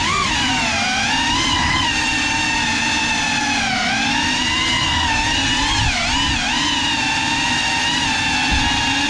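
GEPRC CineLog35 cinewhoop's brushless motors and propellers whining. The pitch rises and falls smoothly as the throttle changes, with dips around four and six seconds in.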